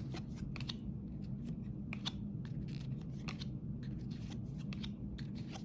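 Trading cards being handled and flipped through: faint, irregular light clicks and rustles over a low steady hum.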